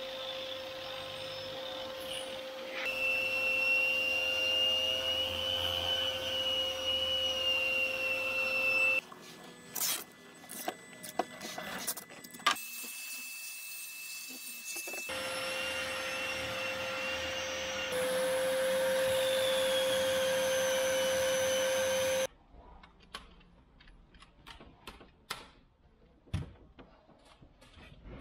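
Shop vacuum running on a vacuum hose, a steady whine with hiss. It breaks off twice for quieter stretches of scattered clicks and knocks from hand work.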